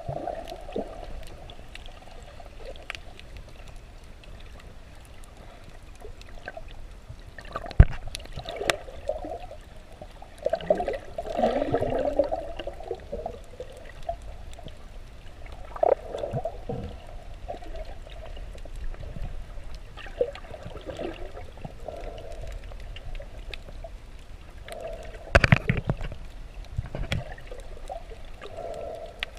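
Water sloshing and gurgling, heard muffled from a camera held underwater, louder for a couple of seconds about ten seconds in. Two sharp knocks stand out, about eight seconds in and again later.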